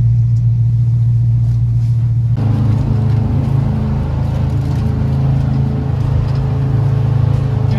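An engine drones steadily, heard close up as if from aboard. Its note changes and grows fuller about two and a half seconds in.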